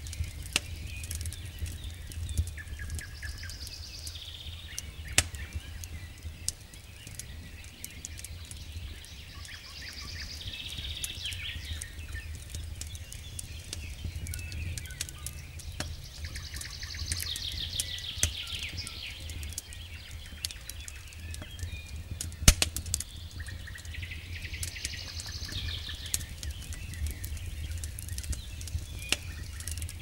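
Wood campfire crackling with frequent sharp pops, one much louder pop about two-thirds of the way through, over a steady low rumble. A bird sings short high phrases every several seconds.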